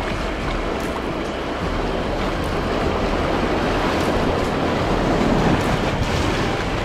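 River whitewater rushing around a packraft as it runs a small rapid, with water splashing off the paddle blade; the rush grows loudest a little past the middle.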